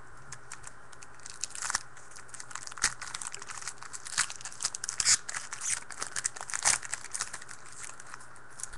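A 2013 Panini Rookies & Stars card pack's wrapper being torn open and crinkled: a run of crackling rustles starting about a second in and continuing to near the end.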